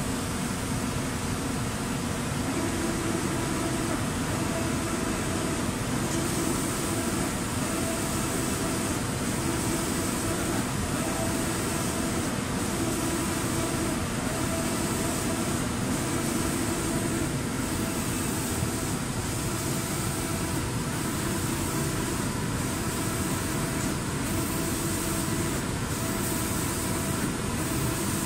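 Automatic spray painting machine for cabinet doors running: a steady mechanical drone, with a high hiss that comes in about six seconds in and pulses about once a second as the reciprocating spray guns pass over the door.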